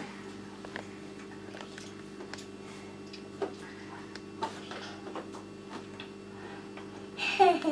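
Scattered faint clicks and taps of spoons and plastic bowls, over a steady low hum. Near the end, a toddler's short vocal sound.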